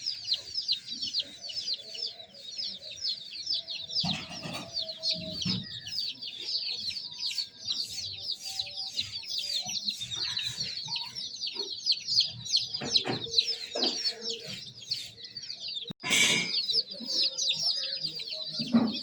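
A brood of baby chicks cheeping without a break, many short high peeps overlapping, each sliding down in pitch. About three-quarters of the way through there is a brief louder noise.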